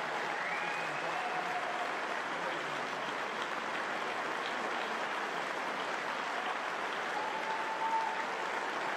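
Audience applauding steadily at the end of a classical guitar concerto performance.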